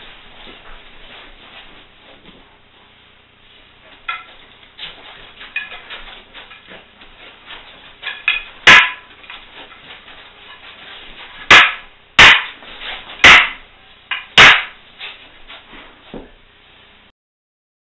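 Wooden training staffs knocking together in a sparring drill: a few light knocks, then five sharp, loud clacks in the second half, roughly a second apart.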